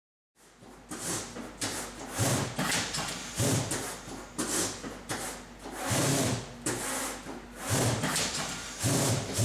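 Automatic corrugated box-making machine running: irregular mechanical whooshes and clunks every half second to a second, with a low motor hum that comes and goes.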